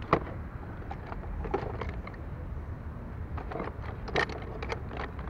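Scattered light clicks and scrapes of small metal brake parts being handled and cleaned, from a scooter's front brake caliper and its pads. The sharpest click comes about four seconds in.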